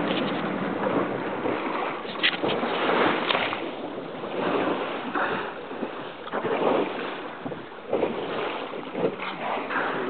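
Wind buffeting the microphone and water lapping against an inflatable Zodiac boat on the open sea, a rushing noise that swells and eases irregularly, with a few short sharper gusts or splashes.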